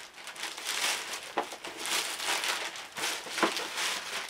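Black plastic postal mailing bag rustling and crinkling in a run of irregular swishes as it is handled and opened to get the shoebox out.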